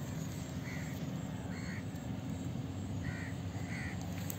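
A bird calling: four short calls in two pairs, about a second and a half apart, over a steady low rumble.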